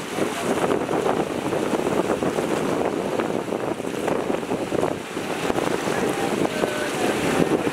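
Small waves lapping and splashing against a rocky shore, with wind buffeting the microphone.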